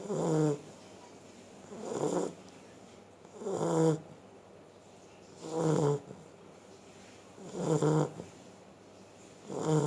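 Beagle snoring: a short, buzzy, pitched snore about every two seconds, evenly repeated.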